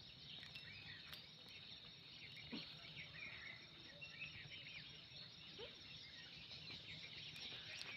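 Near silence: faint rural outdoor ambience with a steady faint high-pitched hum and a few soft ticks and rustles.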